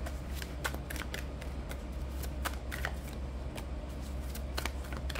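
A deck of oracle cards shuffled by hand: a run of quick, irregular card flicks and taps.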